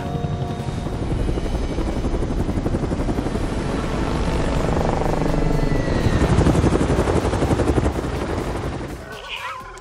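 Twin ducted-rotor gunship helicopter flying low, its rotors beating in a fast chop over the engine noise, growing louder and then fading away near the end.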